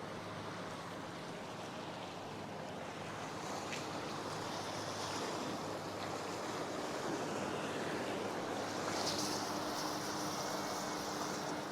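Sea waves washing onto a rocky shore: a steady surf wash that grows a little louder through the second half, with brief sharper hiss as water breaks.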